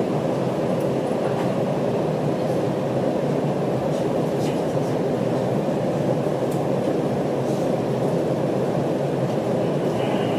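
Train noise: a steady, even rumble with a few faint ticks, and a faint high steady tone coming in near the end.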